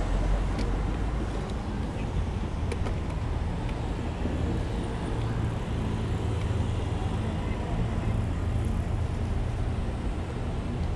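City street traffic noise heard from a moving bicycle: cars running through a road intersection over a steady low rumble, with a few faint clicks.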